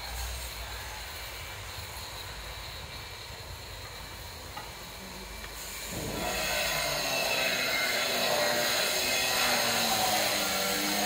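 Construction-site din. A steady hiss turns about six seconds in into a louder, busier mix of shifting pitched sounds from work on the site.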